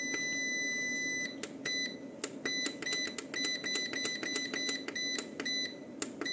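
Anern 5.5 kW hybrid solar inverter's panel buzzer: one long beep that stops about a second in, then a rapid string of short key-press beeps as its menu buttons are pressed to step through the settings, over a low steady hum.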